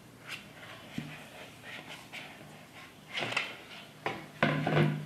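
Risen yeast dough being pressed and patted flat by hand on a flour-dusted board: soft rubbing and thudding strokes, a few short ones at first and a louder spell near the end.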